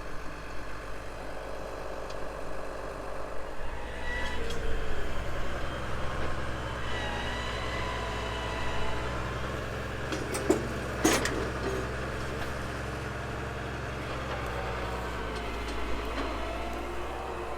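Tractor engine running steadily, picking up and getting louder about four seconds in, with a few sharp knocks a little past the middle.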